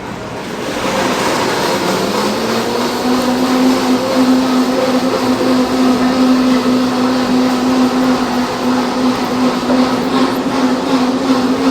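A machine's motor starting up: a hum rises in pitch about two seconds in, then runs steadily over a loud rushing of air.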